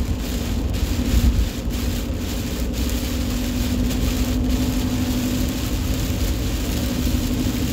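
Steady road and engine noise heard inside a truck's cab while driving in the rain: a low rumble with a steady hum and an even hiss of wet tyres and rain.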